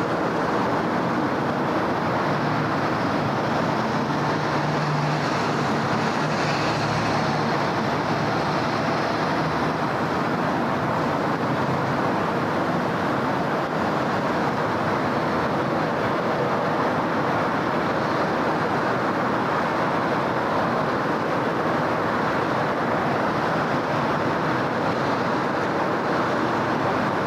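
Steady city traffic noise: a continuous wash of passing cars and road noise, with a low engine hum swelling about 4 to 9 seconds in.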